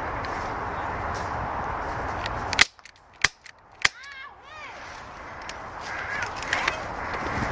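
Three sharp airsoft gun shots about half a second apart. Before them is a steady rustling noise, which drops away suddenly at the first shot, and a brief run of high chirps follows the shots.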